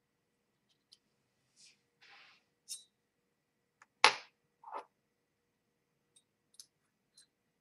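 Scattered small clicks and scrapes of a metal lock cylinder and small tools being handled, with a sharp knock about four seconds in as a tool meets the desk, then a duller thud.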